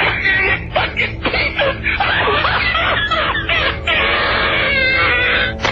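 Indistinct, muffled voices on a low-fidelity recording of a telephone call to an answering machine, band-limited like phone audio.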